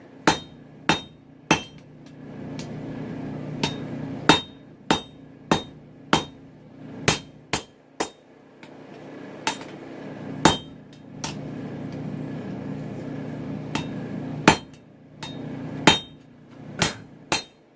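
Hammer blows ringing on hot chainsaw-bar steel on the anvil as the knife's tang is forged, struck irregularly about one to two times a second with short pauses. A steady low hum runs underneath.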